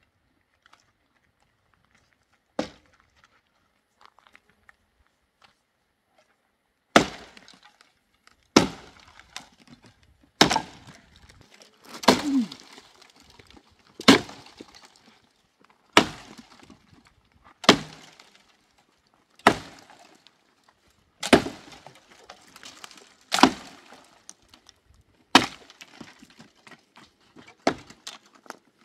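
Wood being broken up for firewood: sharp cracking strikes with splintering, one about every two seconds, each trailed by a brief crackle of debris. After a single strike and a pause, the strikes settle into a steady rhythm about a quarter of the way in.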